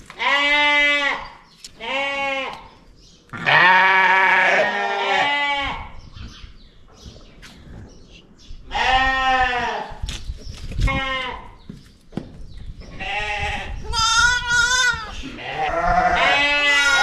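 Sheep bleating about six times: a black ewe and her newborn lamb calling while being held for handling. Some calls are deep and others high and wavering, and two overlap about four seconds in.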